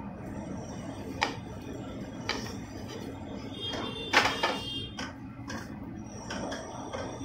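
Koftas dropped into thick gravy in a non-stick pan, then a wooden spoon stirring and knocking against the pan, giving soft knocks and scrapes every second or so; the loudest knock comes about four seconds in. A faint, high, steady whine runs underneath.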